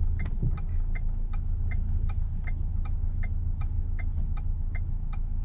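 Car turn-signal indicator ticking in an even tick-tock rhythm over the low, steady hum of the engine inside the cabin.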